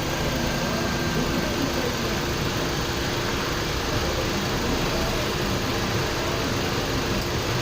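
Nissan Almera running with its air conditioning on, giving a steady mechanical hum with faint steady tones.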